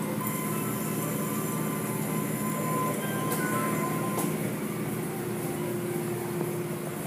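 Automatic car wash machinery running: a steady mechanical rush with a held hum, and a couple of brief higher hisses about three and four seconds in.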